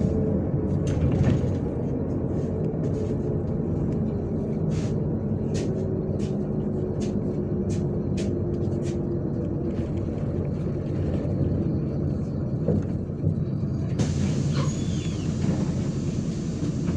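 Steady low rumble of a MAZ-103 city bus in motion, heard from inside: engine and road noise. A run of evenly spaced sharp ticks comes in the middle, and a hiss sets in near the end.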